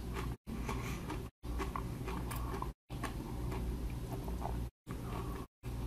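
Faint chewing of a spicy pickle chip, with small clicks and ticks of the mouth over a steady low room hum. The audio cuts out to total silence briefly several times.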